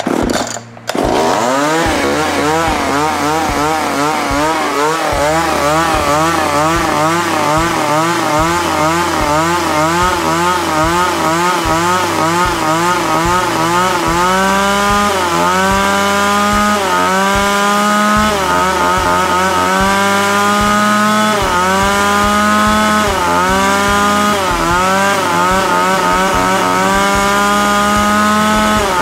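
Tanaka PMS-330A two-stroke chainsaw engine fires about a second in and runs with its pitch wavering up and down, then from about halfway is revved in short blips every second and a half to two seconds. It is running on fresh mix after stale fuel had kept it from starting.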